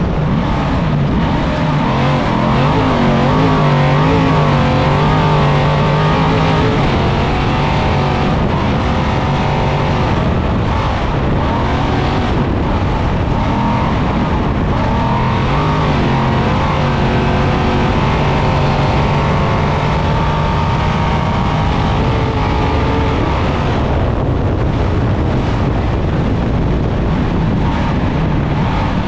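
A 1000-plus-horsepower all-wheel-drive Trophy Truck's engine at race pace, heard from inside the cab, its pitch rising and falling continually as the throttle is worked. Under it runs a steady rumble from the tyres and chassis over rough desert ground.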